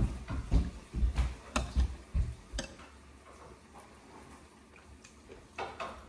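Footsteps thudding on the floor, growing fainter over the first three seconds as the walker moves away, then quiet, then steps again near the end.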